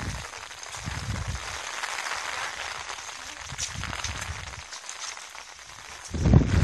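Steady hiss of rain falling, with irregular low gusty rumbles of wind on the microphone; a louder rumble starts near the end.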